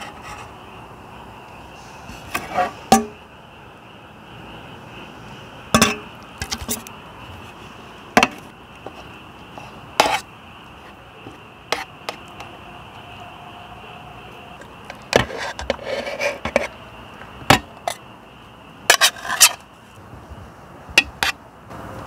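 Metal fork and spoon clinking and scraping against a steel camp plate and a pot while fish is served and picked apart. There are about fifteen sharp clinks scattered irregularly, with short scraping in between.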